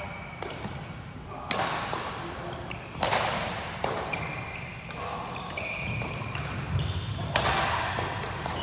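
Badminton rally: rackets striking the shuttlecock every second or two, each a sharp hit that echoes in the hall, with short squeaks of shoes on the court floor between the strikes.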